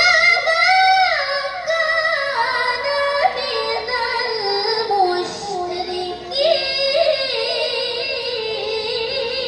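A young woman's Quran recitation (tilawah), sung in long drawn-out phrases with ornamented held notes, amplified through a microphone. The phrase starts abruptly, slowly falls in pitch, and breaks briefly just after halfway before carrying on.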